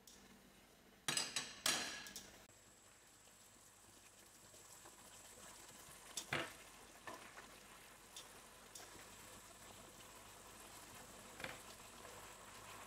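Food sizzling in a hot frying pan. It flares up loudly about a second in, then settles into a steady frying hiss, with a few clicks of a utensil stirring.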